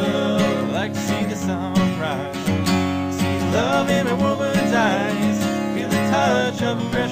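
Country song with acoustic guitar and a singing voice.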